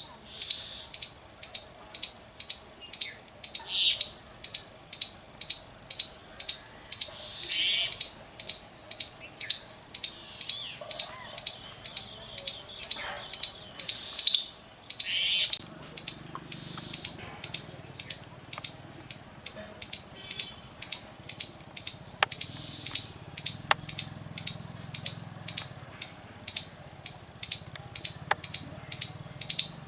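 An Indian squirrel giving its chirping barking call: a long, steady run of short, high, loud chirps, about two to three a second.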